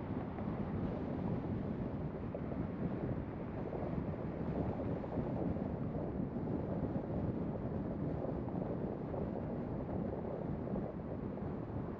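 Steady road noise from a car driving at city speed: a low, even rumble of tyres and wind.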